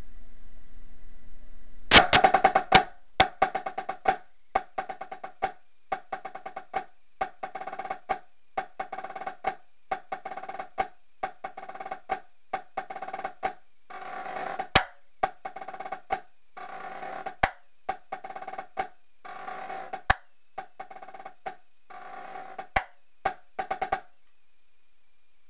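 Tightly tuned marching snare drum played with sticks. It opens with a loud burst of rapid strokes, then runs through rudimental patterns in tight clusters of strokes and short rolls, each ringing high. The playing stops about a second and a half before the end.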